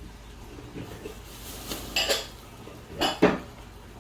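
Light clinking and clattering of small hard objects, in two short clusters about two and three seconds in, over a faint steady low hum.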